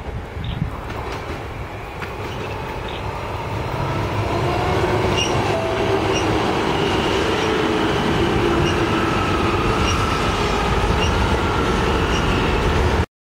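Queensland Rail IMU electric multiple units approaching and running past, growing louder over the first four seconds into a steady rumble with a low whine and regular clicks of wheels over the rails. The sound cuts off abruptly near the end.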